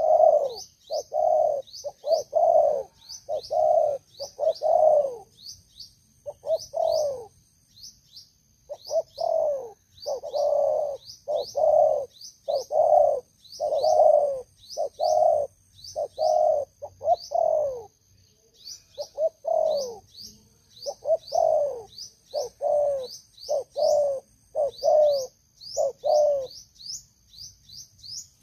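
Spotted dove cooing: a steady run of repeated coo notes, about one and a half a second, each dropping in pitch at its end, broken by a few short pauses. Faint, quick high chirps and a thin steady high whine sound behind it.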